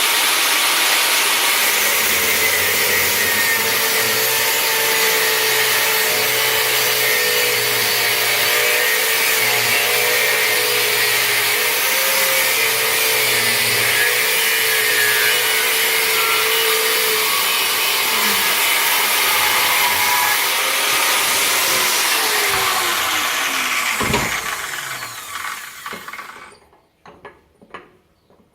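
An electric power tool runs steadily and loudly, with a rasping, sawing-like noise. About 22 seconds in it is switched off, and its pitch falls as the motor spins down over the next few seconds.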